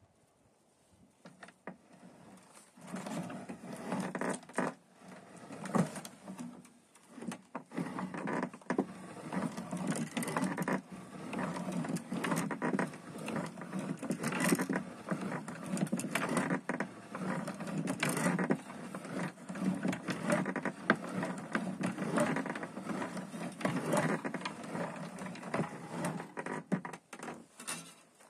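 Hand-cranked chain link fence machine being turned. The steel wire scrapes and rattles as it is wound through the slotted cylinder into a spiral. The clatter starts about two seconds in and stops just before the end.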